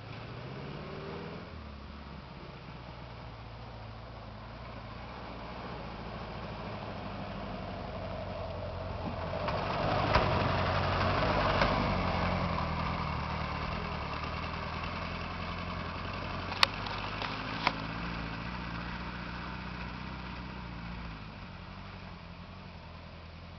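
ZAZ-968M Zaporozhets engine, an air-cooled V4 fitted with magneto ignition, running as the car drives by. It gets louder about ten seconds in, then fades away. A steady low engine hum runs underneath, with a few sharp clicks around the pass.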